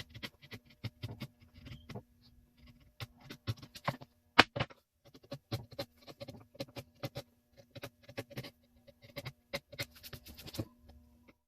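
Workshop handling noises from woodworking: a run of irregular clicks, taps and scrapes, with one loud knock about four and a half seconds in, over a faint steady hum.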